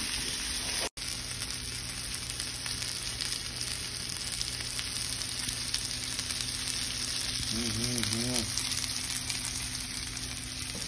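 Sesame-crusted tuna steaks searing in sesame oil in a hot cast-iron skillet: a steady frying sizzle. The sound cuts out for an instant about a second in.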